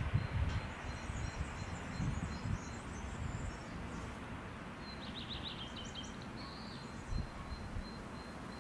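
Wind gusting over the microphone, strongest in the first few seconds and then easing, with small birds chirping in the background, including a quick trill about five seconds in.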